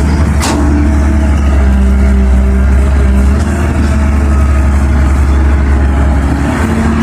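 Heavy diesel engine of a Caterpillar 320 hydraulic excavator running steadily, with a deep low hum, while it digs. A brief sharp sound cuts in about half a second in.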